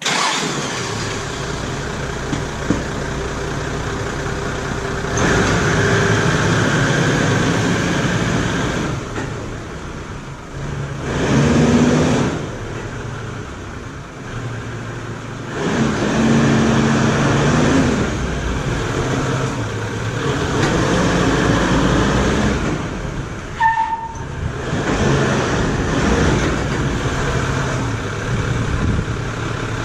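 Toyota Land Cruiser engine running while the vehicle is driven slowly backwards and forwards to test freshly fitted front brake pads, the engine note rising and falling several times as it pulls away and stops. A brief squeak sounds about three quarters of the way through.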